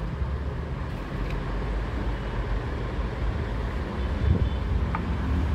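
Steady low rumble of road traffic, with a faint click about a second in.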